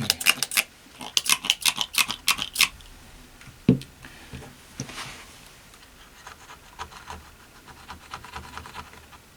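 Fast scraping and scratching strokes on dried, crunchy thermal compound at a motherboard's chipset heatsink, in two quick runs in the first three seconds. A single dull knock comes a little before four seconds, followed by lighter, scattered scratches.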